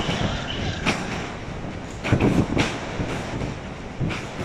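Distant explosions at an aluminium alloy plant: a continuous deep rumble with heavier booming surges about a second in, around two seconds in and near the end. The blasts come from floodwater reaching a tank of molten alloy.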